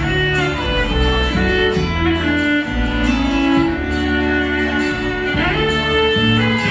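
Live bluegrass string band playing an instrumental passage: bowed fiddle carrying the melody over strummed acoustic guitars and electric upright bass.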